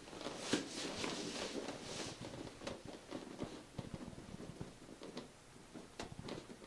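Rustling of clothing and body movement with scattered light clicks and taps, as a person is handled and shifted during a chiropractic treatment; one sharp click about six seconds in.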